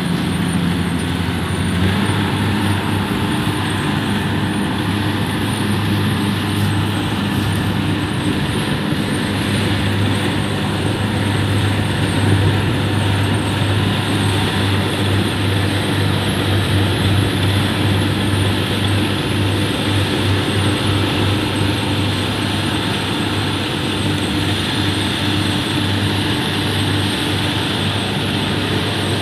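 Kubota DC-70 combine harvester's diesel engine and threshing machinery running steadily as it cuts lodged rice, a constant low drone.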